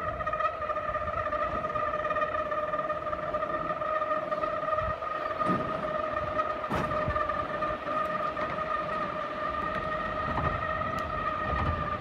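Scarborough Tramway cliff funicular in motion as the car travels down the incline, giving a steady high-pitched whine over a low rumble, with a couple of faint knocks midway.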